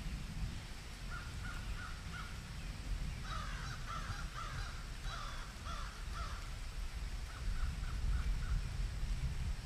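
Birds calling in short repeated notes, coming in several bursts, over a steady low rumble.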